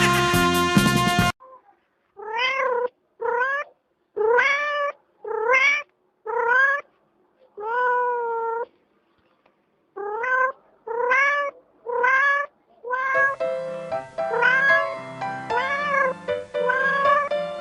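A domestic cat meowing over and over, about one short meow a second, each rising then falling in pitch, with one longer meow in the middle. Music cuts out about a second in and comes back near the end under more meows.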